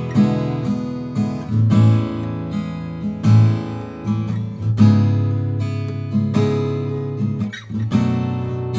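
Sqoe S200-FG acoustic guitar, solid cedar top with black walnut back and sides, playing chords. There is a fresh strum or pluck about every second, and each chord rings on until the next one.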